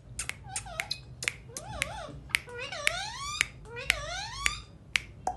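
A parrot making sharp clicks along with whistle-like calls: one warbling call near two seconds, then two long calls that sweep upward in pitch.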